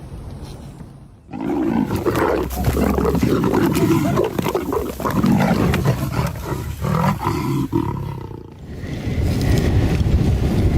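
A large animal roaring, starting suddenly about a second in, dying away near eight seconds, then starting again.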